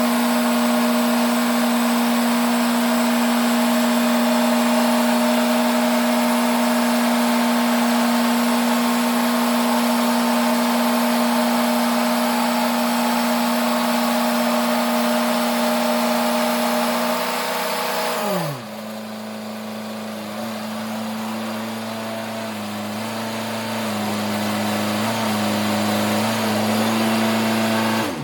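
Sawmill machinery running steadily at high speed. About 18 seconds in, its pitch drops quickly to a lower, quieter steady run, which stops suddenly at the end.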